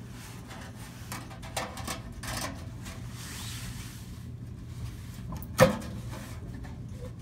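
Hands handling a metal HVAC blower assembly at its shaft bearing and housing: rustling and light knocks, then one sharp metallic clank about five and a half seconds in with a short ring, over a low steady hum.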